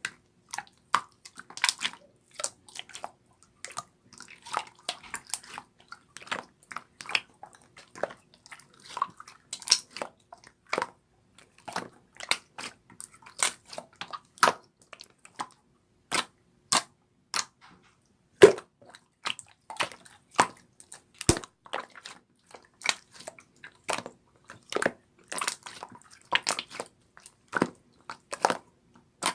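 A run of irregular sharp clicks and taps, about two to three a second, with short gaps between them.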